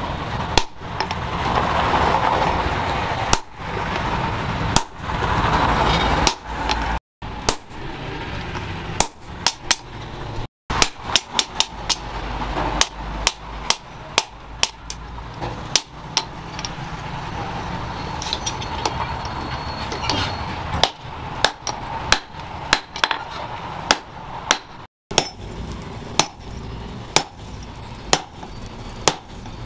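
Hand hammer blows on red-hot leaf-spring steel held on a steel anvil: sharp metallic strikes at an irregular pace, coming in quick runs, over a steady rushing noise.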